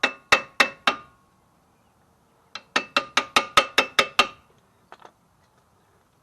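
A hammer tapping on metal brake parts, each tap ringing briefly. There are about four taps at the start, a pause of about a second and a half, then a faster run of about nine taps, about five a second, and two faint taps near the end. The tapping is to seat new front brake pads that are going on with unusual difficulty.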